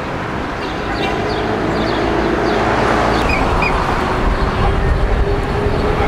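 Busy street traffic with a bus engine running close by; the rumble grows louder over the first few seconds and then holds steady with a hum. A few faint, short, high chirps sound early on top of it.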